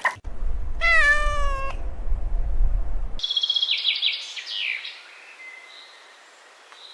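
A cat meows once, about a second in, over a low rumble. A run of high, quick chirps follows at about three seconds, then it goes quiet.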